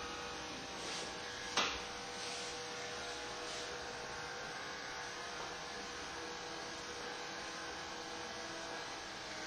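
Barber's scissors snipping over a comb while cutting a flattop, a few faint snips and one sharp click about one and a half seconds in, over a steady electrical hum.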